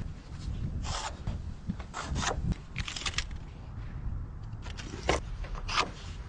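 Handling of wood and tools: a string of short scrapes and rubs with scattered light knocks and clinks.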